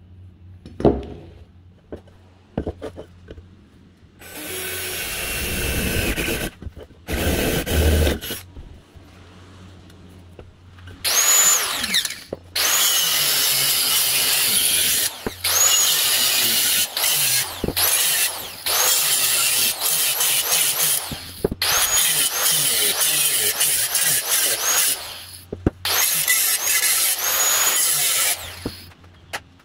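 Rotary tool with a cut-off wheel cutting into the brass tank of an old blowtorch, run in repeated bursts of a few seconds, each opening with a high whine.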